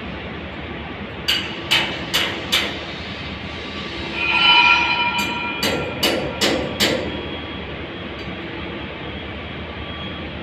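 Steady industrial worksite noise with two runs of sharp knocks, four in quick succession about a second in and five more a few seconds later, each about half a second apart. Between the two runs, a brief ringing metallic tone swells up.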